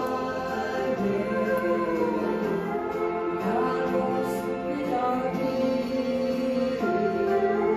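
A small mixed group of men and women singing a gospel song in harmony, a woman's voice leading through a handheld microphone, held notes running on without a break.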